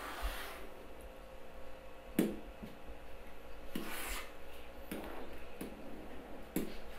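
Scattered short clicks and light knocks, about seven, the loudest a little after two seconds in, over a faint steady hum.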